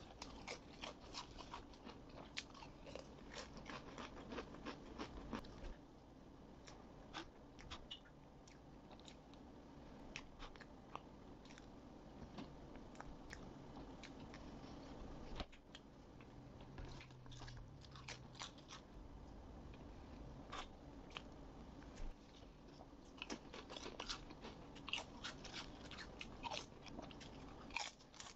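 Close-miked eating: clusters of crisp crunches as thin chips are bitten and chewed, alongside softer chewing of chocolate cake.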